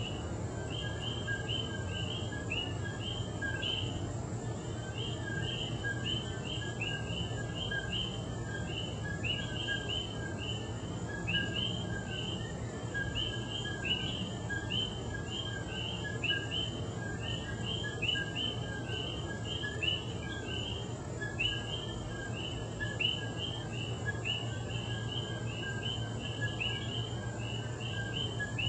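Night chorus of many coquí frogs, their short two-note calls repeating and overlapping without pause. A steady low hum runs underneath.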